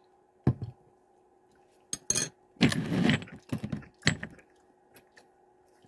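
Handling of a small hot sauce bottle: a knock about half a second in, then clicks, clinks and a short rustle as the bottle and its cap are worked and set down.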